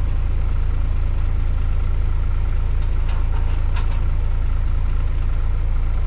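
Crawler excavator's diesel engine running steadily as a low, even rumble while the machine works, loading soil into a dump truck.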